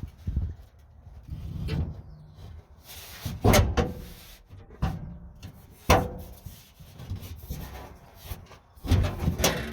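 Ford F-100 pickup's steel hood clunking and knocking as it is lowered and set down to check clearance over newly mounted air horns: a handful of sharp metal knocks, the loudest about three and a half and six seconds in, a couple of them with a brief ring, then a cluster of knocks near the end.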